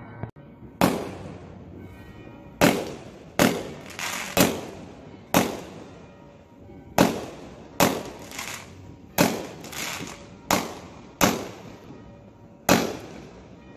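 Aerial fireworks shells bursting overhead: a run of sharp bangs at uneven spacing, roughly one a second. Each bang dies away over about half a second.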